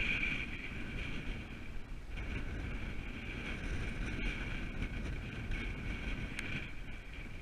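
Wind buffeting the microphone with a steady rumble, over a continuous whirring that dips briefly about two seconds in.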